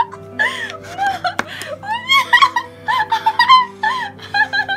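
High-pitched voices laughing and chattering over background music with long held low notes.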